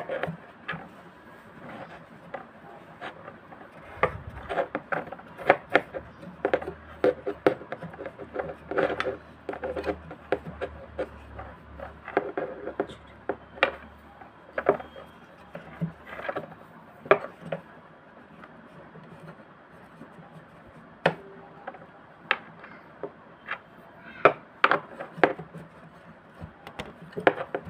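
A cloth being rubbed and pushed around inside a sewing machine's bobbin and rotary-hook compartment, with irregular small knocks and scrapes against its plastic and metal parts.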